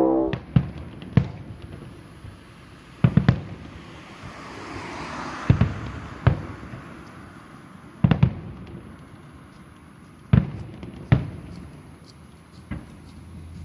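Aerial fireworks shells bursting: about ten sharp booms at irregular intervals, some in quick pairs, each trailing off in an echo.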